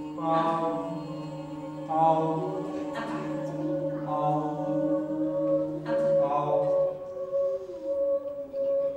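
Several voices singing long held notes together in a chant-like drone, with new notes or syllables entering about every one to two seconds over a steady held tone.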